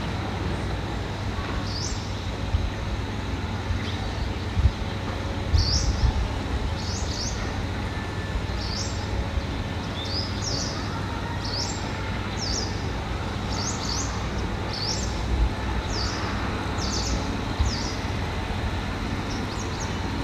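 A bird chirping repeatedly, short high downward-sweeping notes about once a second, over a steady low rumble with a few dull thumps near the start.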